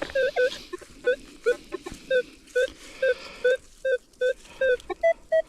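Minelab Manticore metal detector sounding short target beeps, about two to three a second as the coil sweeps over buried metal. The beeps hold a lower tone and switch to a slightly higher tone near the end, a sign of two separate targets under the coil.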